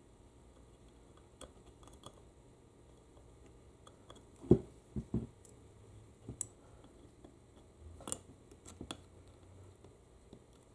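Scattered light clicks and knocks of small metal parts and tools being handled during a U140 automatic transmission teardown, working pistons, springs and keepers out of their bores. The loudest is a knock about halfway in, followed closely by two more; a few fainter clicks come later.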